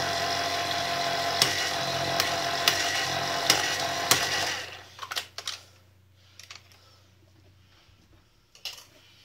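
Electric can opener's motor running as it cuts round a can, with a sharp click every second or so, then stopping about four and a half seconds in; a few light clatters follow as the can comes free. The opener is worn, on its last legs.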